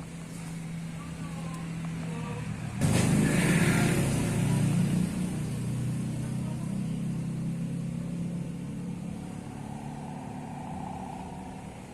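A motor vehicle's engine running close by. A low steady hum becomes suddenly louder about three seconds in, then slowly fades.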